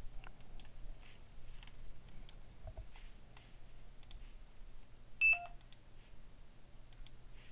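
Sparse computer mouse clicks and a few key taps, with one short, louder electronic beep about five seconds in.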